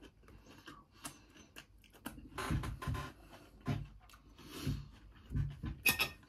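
Small takeaway fork prodding and scraping in a cardboard kebab box of meat and salad: a string of soft clicks, scrapes and light knocks, a little louder from about two seconds in, as the fork fails to pick up the salad.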